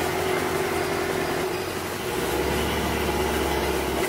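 Small river boat's motor running steadily, a constant droning hum, with a deeper low hum strengthening about two seconds in.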